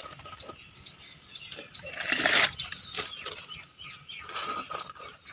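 Sheets of newspaper rustling and crinkling as hands smooth and fold them over a plastic basket, with a louder burst of crumpling about two seconds in.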